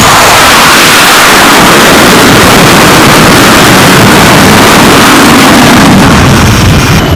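F/A-18's twin jet engines at full power with afterburners lit for a catapult launch: a loud, steady roar.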